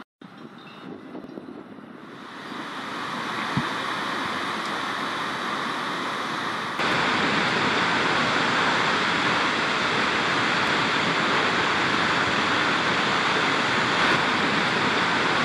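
Steady rushing of a tall waterfall's falling water, swelling in over the first few seconds and stepping up louder about seven seconds in.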